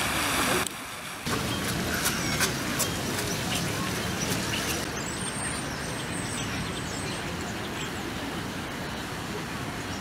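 Outdoor city-park ambience: a steady wash of distant traffic and background voices. The hiss of a fountain jet splashing into its basin is heard only at the very start, and a faint high bird call comes in around the middle.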